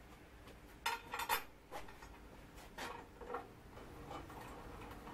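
Small metallic clinks and taps of screws and a screwdriver being handled on a cast aluminium bandsaw table while the table is screwed on. A quick cluster of sharp clinks comes about a second in, then lighter scattered ticks follow.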